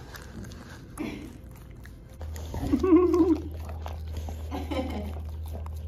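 A dog licking and lapping food out of a glass dish, with wet licking and chewing sounds. About three seconds in, a short pitched voice sound is the loudest thing, and a low steady hum starts a little before it.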